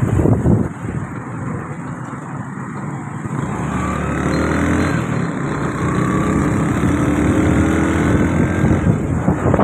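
Engine and road noise from a moving vehicle in traffic, with an engine's pitch rising gently from about four seconds in as it speeds up.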